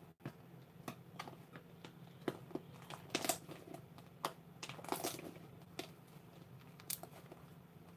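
Irregular light clicks and crinkles of handling noise close to the microphone, over a faint steady hum.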